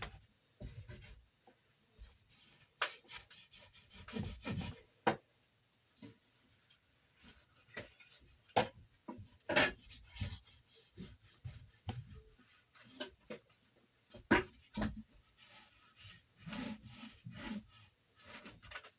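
Self-adhesive silicone bed heater being rubbed down onto a 3D printer bed as its backing is peeled off, pressing out air pockets. It makes a run of irregular rubbing and scraping strokes.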